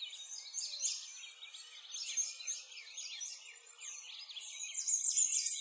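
Many small birds chirping at once, a dense, unbroken run of quick high chirps overlapping one another, slightly louder near the end.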